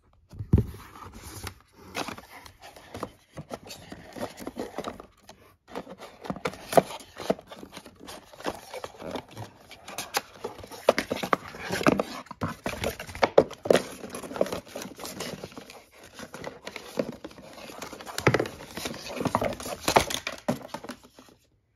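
Cardboard and paper packaging being handled: a paper sleeve slid off a coiled power cable and the cable lifted out of its cardboard holder, with irregular scraping, rustling and small knocks.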